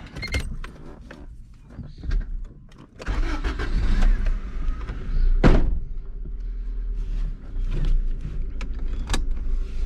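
1991 Honda Civic DX's D15 four-cylinder engine started: a few clicks, then about three seconds in it catches and settles into a steady idle. A single sharp thunk comes about five and a half seconds in.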